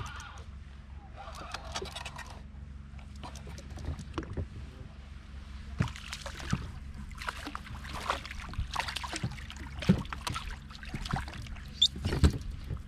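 A hooked snapper thrashing and splashing at the water's surface as it is reeled in, with a string of sharp splashes and knocks in the second half, over a steady low hum.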